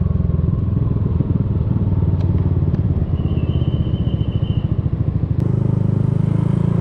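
Yamaha Aerox 155 scooter's single-cylinder engine running under the rider, heard from the rider's seat. The engine note eases and turns uneven about a second in, then picks up again strongly about five seconds in. A faint thin high tone sounds briefly in the middle.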